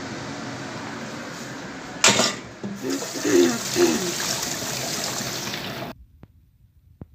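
A kitchen tap turned on about two seconds in, water gushing into a stainless steel bowl in the sink. The rush cuts off suddenly near the end. Before it there is a steady background hum.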